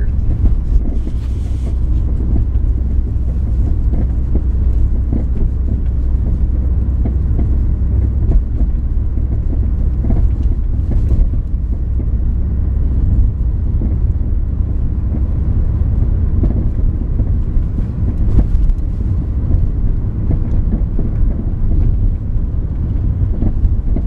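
Cabin rumble of a 2000 Ford Focus driving over a bumpy road, with a few brief knocks from the front suspension about a second in, near the middle and toward the end. The owner traced the noise to worn sway bar end links, and replacing them cured it.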